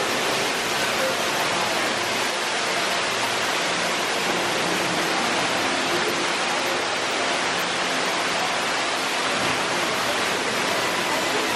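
Water rushing and falling steadily in a dark-ride boat flume's cave, a constant even roar with no breaks.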